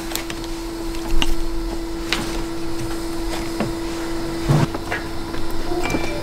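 Scattered clicks and knocks of hand work on a car's front-end plastic trim and grille, over a steady hum.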